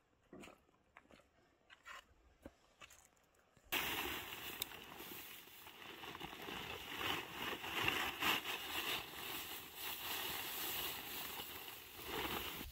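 Dry hay being stuffed by hand into a woven plastic sack: a dense crackling rustle of straw and sack fabric that starts suddenly about four seconds in, after a few light knocks and steps.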